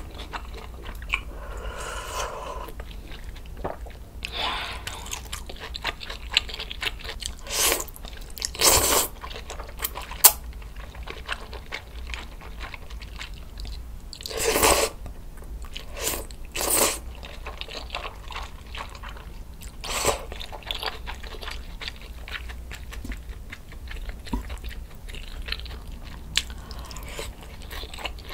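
Close-miked eating: a sip of ox-bone broth, then kalguksu wheat noodles slurped and chewed wetly, with a steady run of small mouth clicks. The loudest sounds are short slurps about eight, fifteen and seventeen seconds in.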